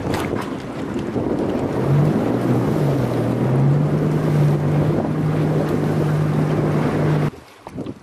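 Boat's outboard engine running with a steady low hum, heavy wind rumbling on the microphone over it; both cut off abruptly near the end.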